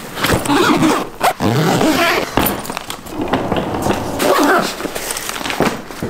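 Luggage being packed and handled: rustling, knocking and clattering of a suitcase and its contents, with frequent sharp knocks.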